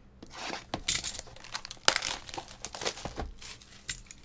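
Plastic shrink wrap on a trading card box being slit with a box cutter and pulled off, crinkling and tearing in a run of bursts, with one sharp click about two seconds in.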